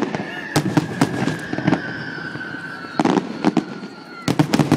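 Firework display shells and mines bursting in quick clusters of sharp bangs, three clusters in all. A long whistle, slowly falling in pitch, runs through the middle.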